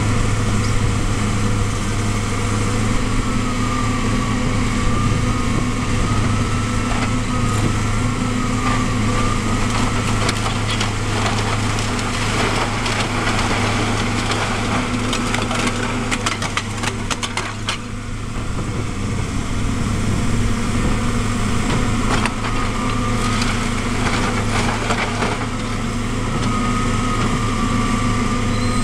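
Caterpillar tracked excavator's diesel engine running steadily with a high wavering whine over it, while its demolition grab crunches and splinters a bungalow's roof tiles and timbers; the cracking and breaking is heaviest around the middle and comes again later.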